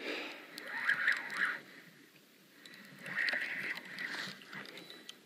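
Spinning reel being cranked to bring in a hooked catfish, winding in short spells with pauses between.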